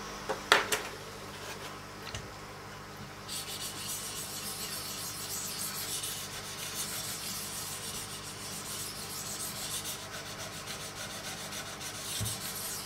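Wicked Edge 800-grit sharpening stone stroked along the steel edge of a clamped Hogue EX-03 knife, a continuous rasping scrape that starts about three seconds in. A sharp knock about half a second in.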